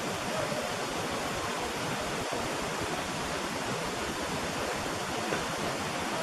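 Steady, even hiss with no knocks: the noise floor of a quiet outdoor recording boosted in gain. A few very faint short pitch glides show through it.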